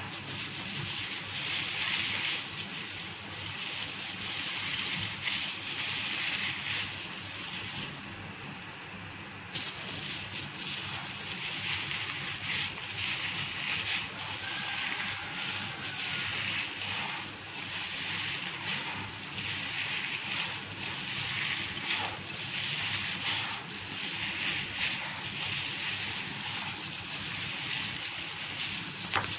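A hand in a thin plastic glove kneading raw mince with chopped onion and spices in a glass bowl: a continuous rustling, squishing noise that dips briefly about eight seconds in.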